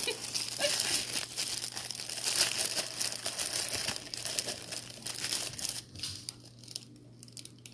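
Packaging being crinkled and crumpled by hand: a dense crackling that thins out after about six seconds.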